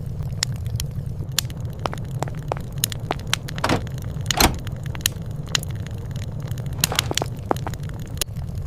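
Wood fire crackling: a steady low rumble under frequent sharp pops, with a pair of louder pops about four seconds in.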